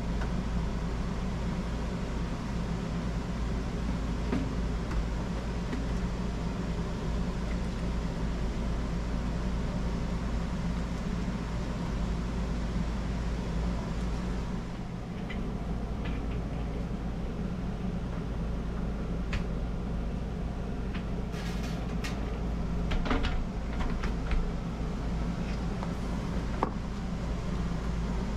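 Steady low machine hum throughout, with a few short plastic clicks and knocks in the second half as parts of a shop vac are handled and fitted together.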